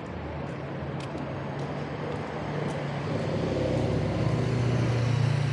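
A motor vehicle's engine hum drawing closer on a city street, growing louder and peaking near the end as it passes, over steady traffic noise.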